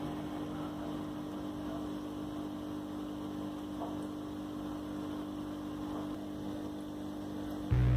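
A steady low hum with a faint hiss; near the end a much louder, deeper electrical hum cuts in suddenly.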